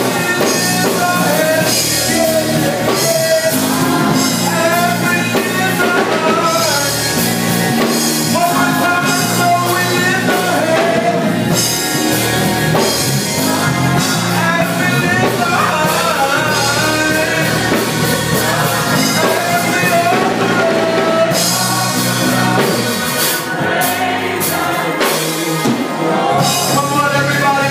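Gospel group singing live with a band of drums and instruments.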